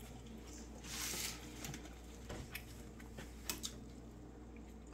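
A fork working food in a plastic takeout tray, quiet: a short rustle about a second in, then a few light clicks and taps.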